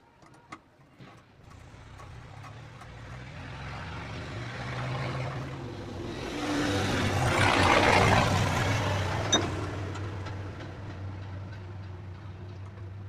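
A motor vehicle's engine swells over several seconds to a peak about two thirds of the way in, then fades slowly, as a vehicle passing by does. A few light metallic clicks come near the start.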